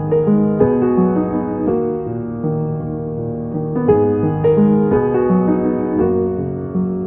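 Background piano music: a gentle melody of single struck notes over a low accompaniment.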